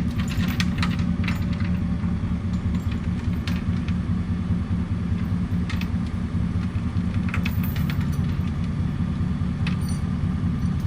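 A vehicle engine running steadily, with a few faint clicks and knocks over it.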